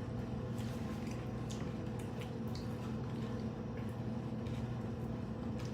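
Faint wet chewing and mouth clicks from someone eating crunchy hard-shell tacos, over a steady low electrical hum.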